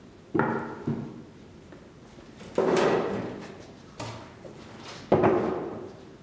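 Large wooden painting panels being shifted and set down on a hard floor: about five sudden knocks and thuds, each dying away in the room's echo.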